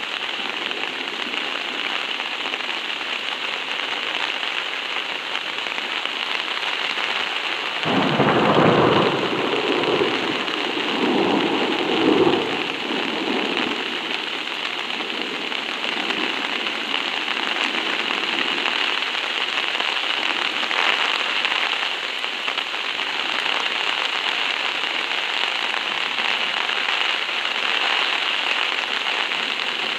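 Heavy rain drumming steadily on a DD Hammocks tarp. A roll of thunder starts about eight seconds in and rumbles for about five seconds, swelling twice.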